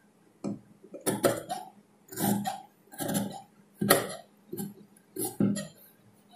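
Large tailor's shears snipping through folded cotton cloth on a cutting table: a string of short, crisp cuts, a little more than one a second.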